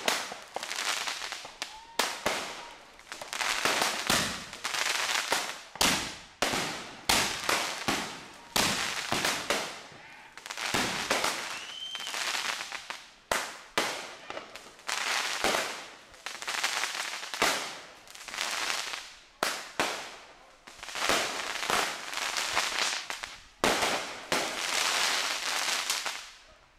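Consumer fireworks going off in quick succession: repeated sharp bangs and pops, each trailing off in a hiss that dies away.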